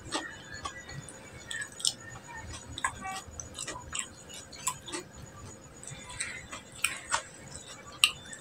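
Irregular light clinks and knocks of kitchenware being handled, about a dozen separate strikes, some ringing briefly, the loudest near the end.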